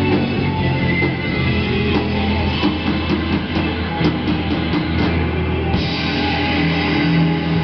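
Live rock band playing electric guitars, bass guitar and a drum kit through amplifiers. A quick run of drum hits comes between four and five seconds in, then cymbals come back in.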